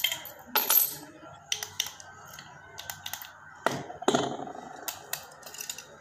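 Metal padlocks clicking and knocking as they are handled and set down on a hard table top: a string of sharp clicks, with the loudest knocks about three and a half and four seconds in.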